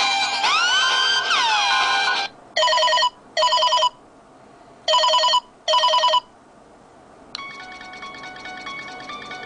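Phone ringtones played back to back. First the end of a ringtone made of repeated swooping, rising tones. Then a telephone-style ring comes in two pairs of short trilling rings (ring-ring, pause, ring-ring), and about seven seconds in a quieter ringtone of chiming plucked notes begins.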